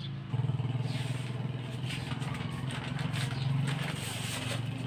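A motorcycle engine idling with a steady low, pulsing hum that comes in just after the start, over light clatter and rustling of packets being handled.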